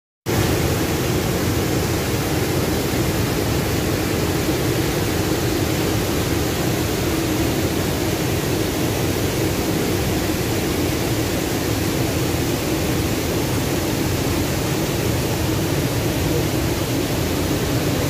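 Steady rush of white water pouring over the wide, low ledge of the Manavgat Waterfall into the river pool below, an even, unbroken noise that starts about a third of a second in.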